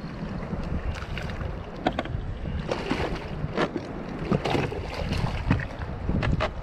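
Wind buffeting the microphone over water sloshing against a kayak hull, with scattered short knocks and splashes.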